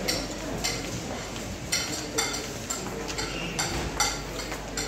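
Metal serving spoons and ladles clinking against steel buffet dishes and plates: a string of irregular, sharp clinks, several a second.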